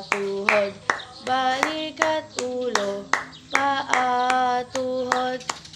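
Steady hand clapping, a clap about every half second or a little less, keeping time under a woman's singing.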